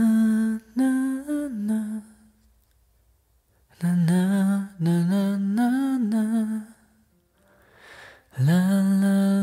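A male voice humming a slow melody with no accompaniment, in several phrases with short near-silent pauses between them.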